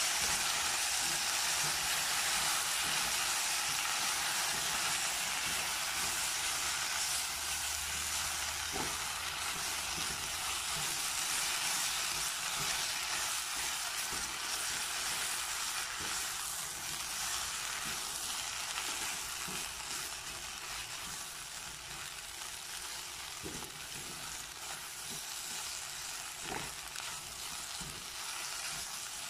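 Tuscan sausage and sliced vegetables sizzling as they fry in a pot, stirred with a silicone spatula that knocks faintly against the pot now and then. The sizzle is steady and eases off a little towards the end.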